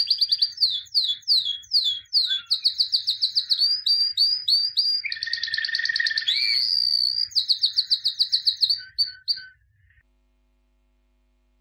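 A songbird singing a long, fast song of rapid trills and repeated chirps, which cuts off abruptly about two seconds before the end.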